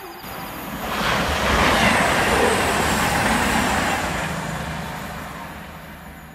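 Class 390 Pendolino electric express train passing through a station at speed: a rushing pass-by that swells about a second in, stays loud for a few seconds, then fades away.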